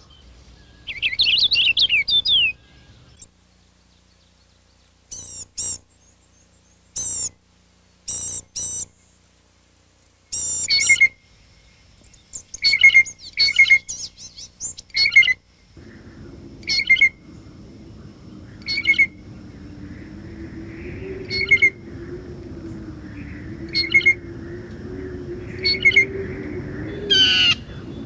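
Small songbirds chirping and calling. A quick run of falling chirps comes first, then separate short, sharp calls repeated every second or two. About halfway through, a low steady rumble joins in under the calls.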